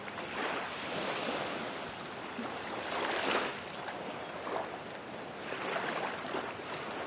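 Small waves lapping and washing up onto a sandy beach, the wash swelling about every three seconds.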